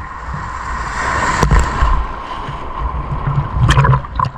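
Sea water sloshing and splashing around a camera held at the waterline, with a low buffeting rumble from the water on the housing. There is a cluster of sharper splashes near the end.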